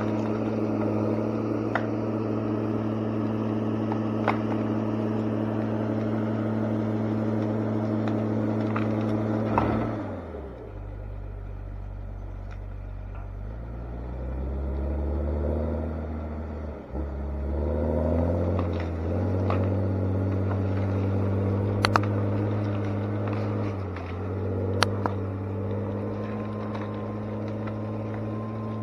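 An engine, likely on logging machinery, running steadily. About ten seconds in it drops to a low speed, then climbs back up over several seconds and runs steady again, easing off briefly near the end. Occasional sharp knocks and clanks are heard over it.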